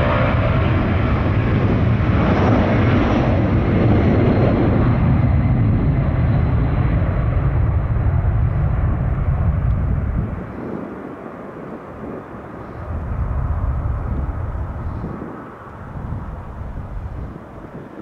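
Jet airliner engines passing close: a loud roar with a deep rumble for about ten seconds, then dropping off sharply and swelling and fading as the aircraft moves away.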